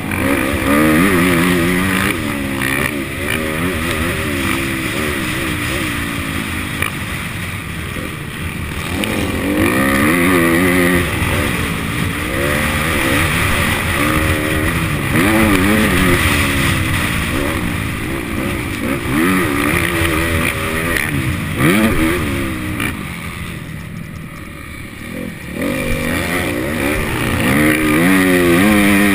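Motocross bike engine being ridden hard, revving up and falling back again and again every second or two as the throttle is opened and shut, with a brief quieter stretch about three quarters of the way through.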